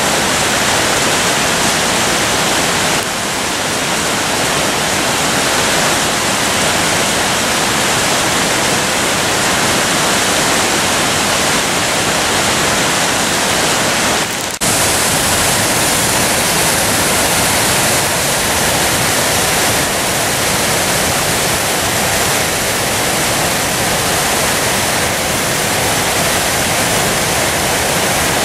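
A large waterfall, white water pouring down rock cascades, heard as a steady loud rushing. About halfway through it dips for a moment and comes back brighter and hissier.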